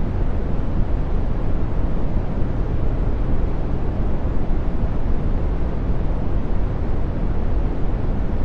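Brown noise: a steady, deep rush of random noise, heaviest in the bass and fading toward the top, without any change.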